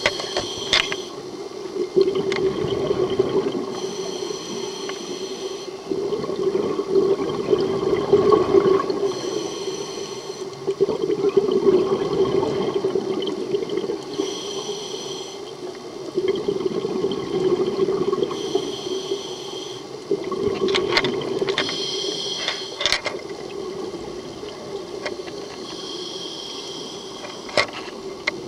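Scuba diver breathing through a regulator underwater. A hissing inhale alternates with a burst of exhaled bubbles, one breath about every four to five seconds.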